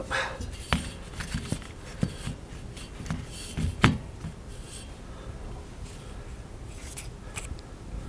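Handling noise as a small camera is set up and repositioned by hand: scattered light clicks and rubbing, with one sharper click about four seconds in, then quieter.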